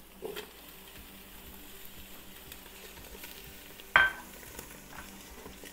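Diced ham sizzling in hot olive oil in a Ninja pressure cooker's inner pot on sauté mode, with a spatula scraping and stirring the pieces. One sharp ringing clack about four seconds in.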